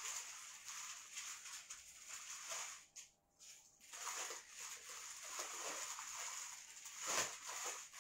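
Clear plastic garment packaging rustling and crinkling as it is handled and sorted through, with a short lull about three seconds in and a louder crinkle about seven seconds in.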